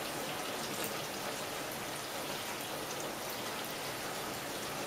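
Steady rain falling, a fine hiss of drops pattering on the ground and surfaces around.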